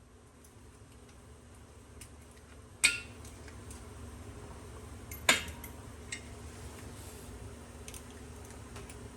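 Metal tools clinking against metal: two sharp, ringing clinks about two and a half seconds apart, with a few lighter clicks around them, over a low steady hum.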